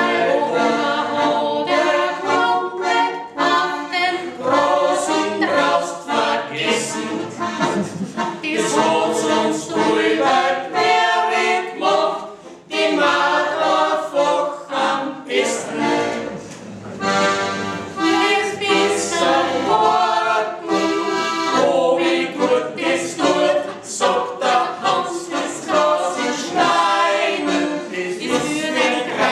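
Several voices singing together, accompanied by an accordion.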